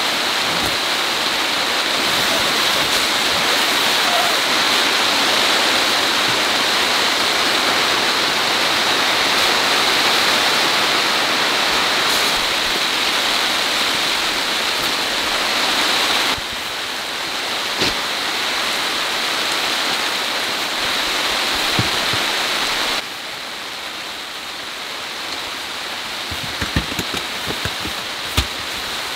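Steady hiss of heavy rain falling, stepping down in loudness about 16 seconds in and again about 23 seconds in. A few light knocks come near the end.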